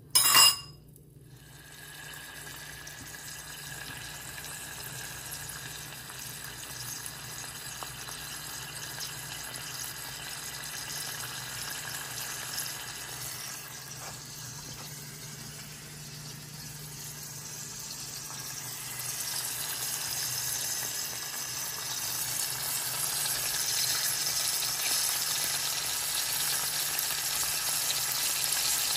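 Whole milkfish frying in shallow oil in a pan: a steady sizzle that grows louder and brighter through the second half. A brief sharp pop right at the start is the loudest moment.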